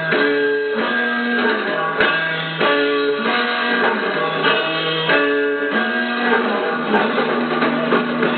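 Live rock band playing an instrumental passage without vocals: guitar over drums, in a riff of held notes that repeats about every second, on a dull-sounding recording that lacks treble.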